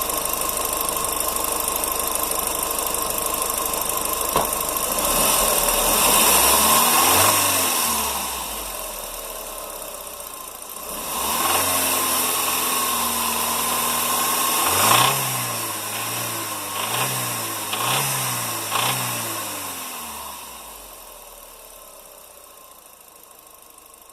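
Audi S3 BAM 1.8-litre turbocharged four-cylinder engine idling with a rattle, revved up and held for a few seconds twice, then blipped in a quick run of four or five revs before settling back down.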